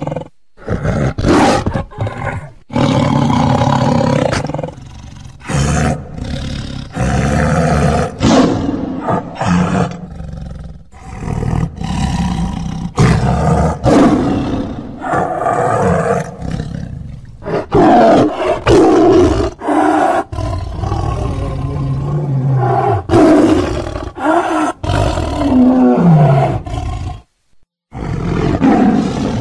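Tigers roaring, a long series of loud roars one after another with short breaks between them; one call near the end falls in pitch.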